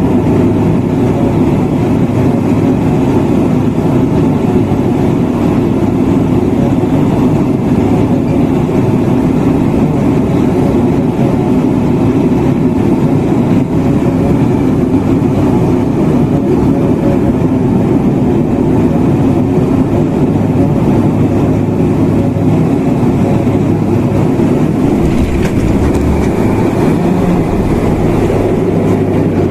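Cabin noise of a twin-turboprop airliner on final approach: the steady drone of the engines and propellers. Near the end a low rumble comes in as the wheels touch down and roll on the runway.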